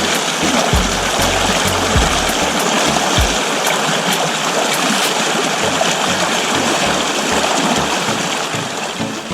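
Creek water rushing steadily, with background music with a steady beat mixed under it; the water fades away near the end while the music carries on.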